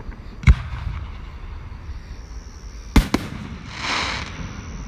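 Fireworks bursting: a sharp bang about half a second in, two more bangs close together near the middle, then a brief hiss as the stars spread.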